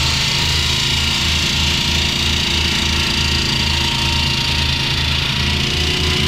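Hand-held diamond concrete saw cutting into a concrete foundation wall, its motor running steadily under load with a continuous whine over a pulsing low rumble.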